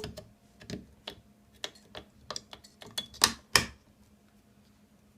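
AA batteries being pressed into the plastic battery holder of an electronic keypad door lock: a series of small clicks and snaps, the two loudest a little over three seconds in, stopping about four seconds in.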